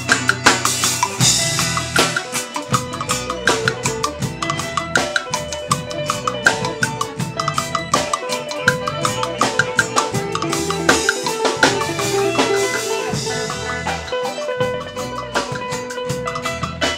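Live band playing a song: a busy drum-kit beat and hand drums over guitar and a bass line.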